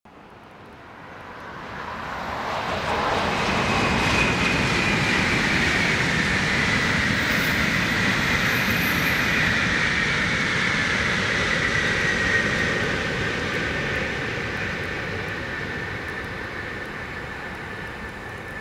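Shinkansen bullet train passing at speed: a rushing noise that swells over the first few seconds, holds, then fades as it goes away, with a high whine that slides slowly lower as the train goes by.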